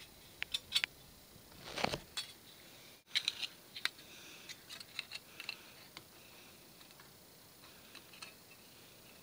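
Light clicks, taps and small metallic rattles of thin sheet-metal parts being handled and set between the electrodes of a micro spot welder, with a short rustle about two seconds in.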